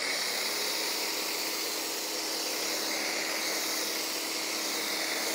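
Greenworks 2000 PSI electric pressure washer spraying soap through its foam cannon, set for the most foam: a steady, unbroken hiss of foam spray, with a faint steady hum from the running pump underneath.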